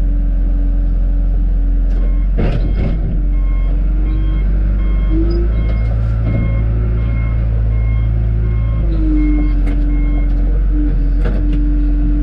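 John Deere 310G backhoe's diesel engine running steadily, with its reverse alarm beeping at an even pace for about seven seconds from around three seconds in as the machine backs up. A sharp clank sounds about two and a half seconds in, and the engine note shifts near the end.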